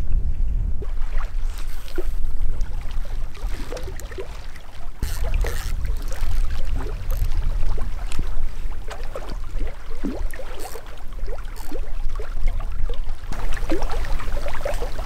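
Wind buffeting the microphone as a steady low rumble, with small waves lapping and gurgling against the rocky shore and a few sharp ticks.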